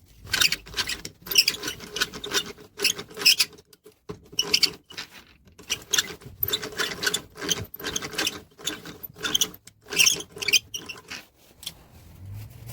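Geared hand drill (Soviet eggbeater type) being cranked in short irregular spurts, its gears whirring and clicking. The sound stops and starts between turns.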